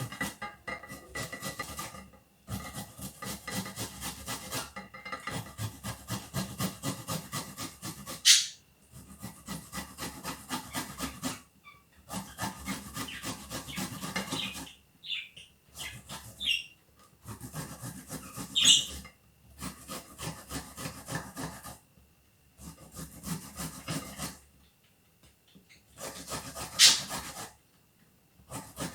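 Peeled fresh ginger root grated by hand on a fine grater: runs of quick rasping strokes, broken by short pauses. Three sharp knocks stand out, about eight seconds in, near the middle and near the end.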